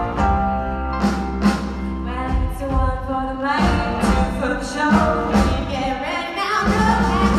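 A large group of voices singing over accompanying music with a steady beat.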